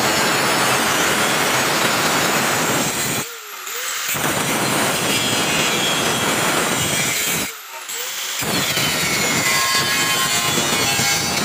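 A 100 mm angle grinder with a cut-off disc cutting through steel box section, a loud steady grinding noise. It drops away briefly twice, once about three and a half seconds in and again near eight seconds.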